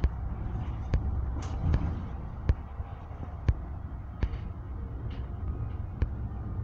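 Interior of an Ikarus 280 articulated bus under way: a steady low diesel rumble, broken by about eight sharp knocks and rattles spread unevenly over a few seconds.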